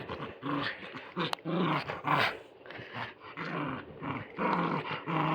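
Puppy growling in a run of short, rasping bursts while play-fighting a toy.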